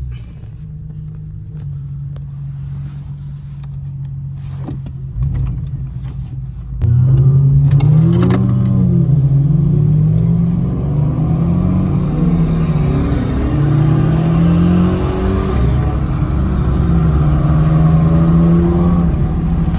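2004 Acura TSX's 2.4-litre four-cylinder engine, running through a dual muffler delete, idling steadily, then revved repeatedly from about seven seconds in, its pitch rising and falling with each blip of the throttle.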